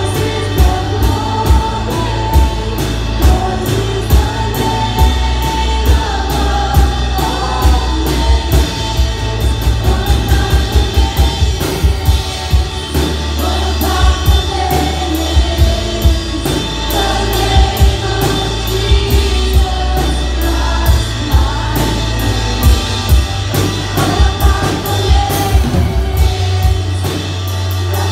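Two female voices singing a song into microphones, amplified, over band accompaniment with heavy bass and a steady drum beat; the drums play a quicker run of hits about ten seconds in.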